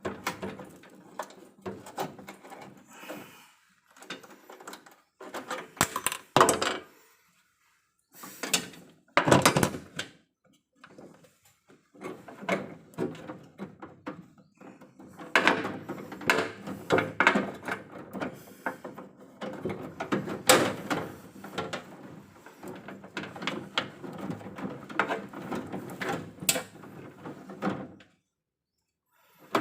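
Irregular clicking, knocking and rattling of tools and metal hardware being handled during electrical panel repair work, with a few short pauses.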